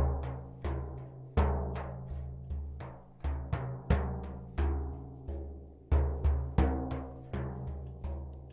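A drum played in a steady repeating rhythm, about two strokes a second, each stroke ringing with a deep tone that dies away.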